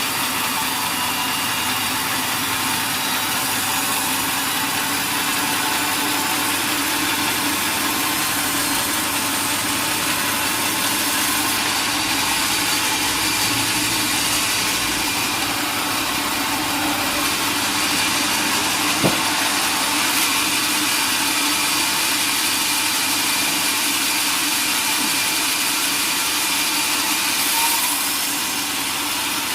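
Sawmill machinery running steadily, a constant engine-like hum under a broad hiss, with one short knock about nineteen seconds in.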